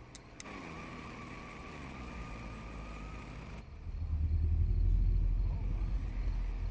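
A film sound effect of an approaching F4 tornado. A steady background hum gives way about three and a half seconds in to a deep rumble that swells, loudest around five seconds, then eases slightly.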